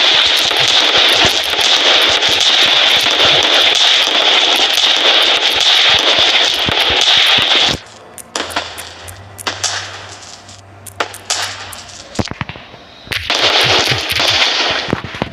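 Fireworks going off: a dense, continuous crackling barrage that stops suddenly about halfway through, leaving scattered separate bangs and pops, before a dense crackle starts again near the end.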